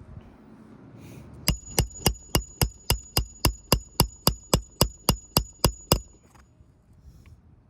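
A rapid run of about seventeen hammer blows, close to four a second, each with a metallic ring, stopping abruptly after about four and a half seconds.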